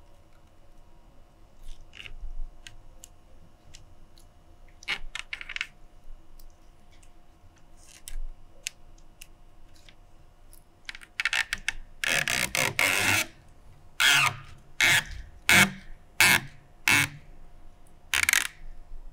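Rattan cane strands scraping and rustling as they are threaded and pulled through the woven cane lattice of a chair seat. Light scattered ticks at first, then about halfway through one longer scrape followed by a run of short, sharp scrapes about one a second.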